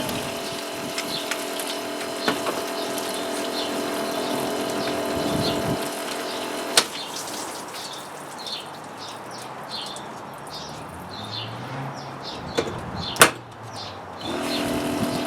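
Frigidaire dishwasher's circulation pump motor running with a steady hum and water swishing, now turning again after its reseated impeller; the hum stops about six seconds in, and a sharp click near the end comes just before the motor starts again. Birds chirp during the pause.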